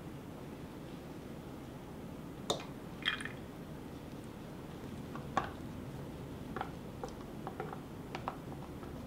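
A handful of light clicks, taps and drips from plastic and glass containers and liquid being poured into a measuring cup of milk, over a low steady hiss. There are single sharp taps about two and a half, three and five seconds in, and a cluster of smaller ticks near the end.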